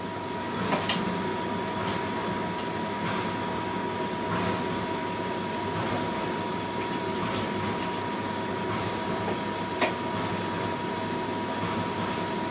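Kitchen range hood fan running with a steady whir and a thin steady whine. A couple of light utensil clicks, about a second in and near ten seconds.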